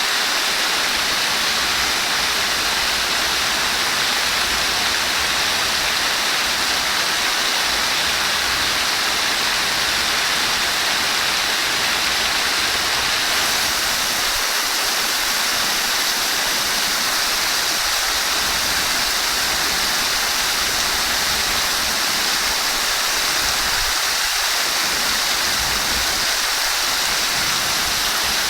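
Steady rush of flowing water, an even unbroken splashing hiss that keeps the same strength throughout.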